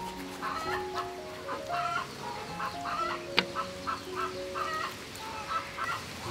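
Background music, a melody of held notes stepping up and down, with chicken clucking mixed in throughout. There is one sharp click about halfway through.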